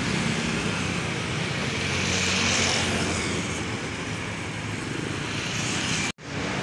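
Road traffic: the engines of a truck and motor scooters running past on a city street, with a swell of engine and tyre noise about two and a half seconds in. The sound drops out abruptly for a moment near the end.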